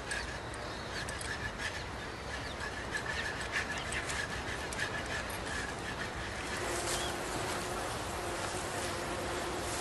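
Outdoor ambience: birds chirping over a steady background hiss, with a low steady hum coming in about six and a half seconds in.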